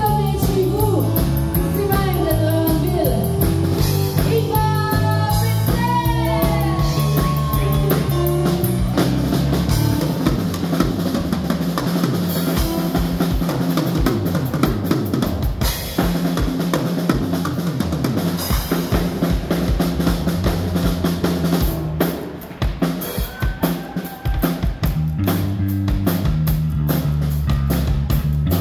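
Live band music. For several seconds a melodic line with bends plays over bass and drums, then the drum kit takes over with a long run of fills and snare hits, and near the end the bass and the band come back in.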